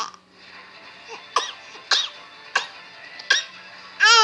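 A two-month-old baby giving a series of five short coughs, about one every 0.7 seconds, the last one longer and more voiced.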